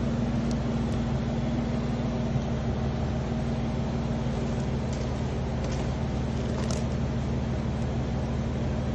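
Jeep Wrangler JK engine idling steadily, with a few faint light clicks.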